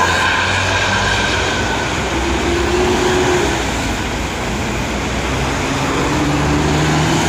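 Large intercity coaches' diesel engines running as one bus pulls away and another drives past, over a steady hiss from tyres on the wet road.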